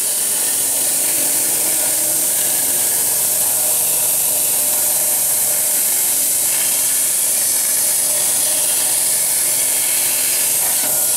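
CNC plasma cutter torch cutting through metal plate, a steady loud hiss.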